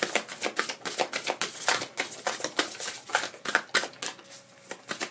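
A deck of oracle cards being shuffled by hand overhand: quick, irregular papery clicks and slaps of cards against each other, thinning out near the end.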